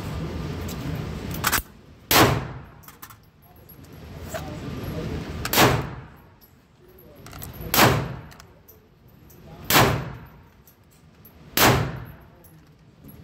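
Gunshots at an indoor shooting range, six in all, the first small and the next five loud, about two seconds apart, each sharp and cracking with a short ring after it.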